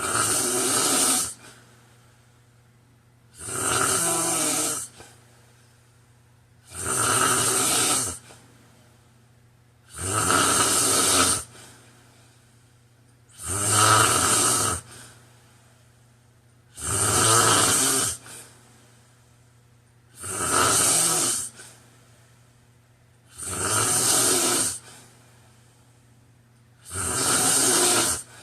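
A man snoring in regular sleep breathing: nine snores in a steady rhythm, one about every three and a half seconds, each lasting about a second and a half.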